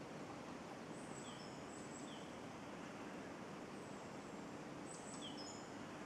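Steady outdoor background noise with a faint low hum. Over it come several short, high bird chirps and calls, a few of them dropping in pitch, around one to two seconds in and again near the end.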